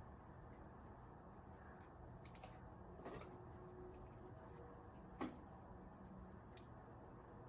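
Faint clicks and taps of WS2812 LED ring boards and the tower's metal post being handled and fitted together, against near silence. There are a few scattered clicks, with the sharpest knock about five seconds in.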